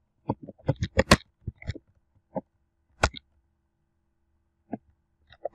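Computer keyboard keys being typed: a quick run of keystrokes in the first two seconds, then a few sparser single key presses, one of them sharper than the rest about three seconds in.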